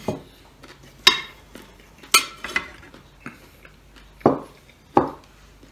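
Ceramic plates and cutlery clinking and knocking on a table as a plate is picked up and moved: about seven separate sharp clinks, the last two duller knocks.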